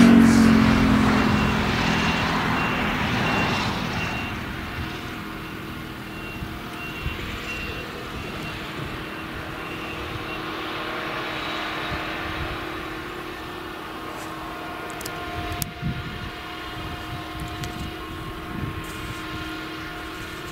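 Claas Jaguar 970 forage harvester's MAN V8 diesel running, loudest at first and easing over the first few seconds into a steadier machine hum. A reversing alarm beeps at an even pace through the first half.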